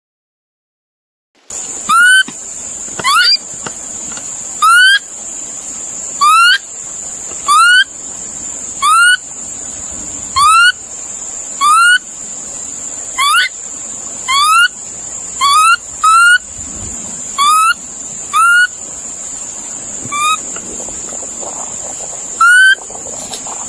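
A bird calling over and over, about sixteen short upward-sliding calls, each a second or so apart, over a steady high hiss. The calls begin after a second and a half of silence.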